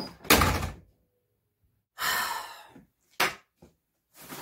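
A door shutting with a heavy thud about half a second in, then, after a silent gap, a long falling sigh and a short breath.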